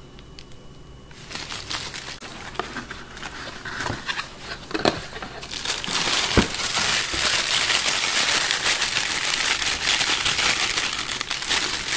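Thin plastic bag crinkling as it is handled and pulled off the phone's base unit. It starts about a second in and grows louder and denser from about halfway, with a few sharp knocks along the way.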